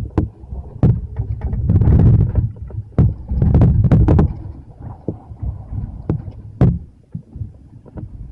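Storm wind buffeting the microphone in uneven gusts, with a low rumble that swells and fades, and several sharp knocks and clatters.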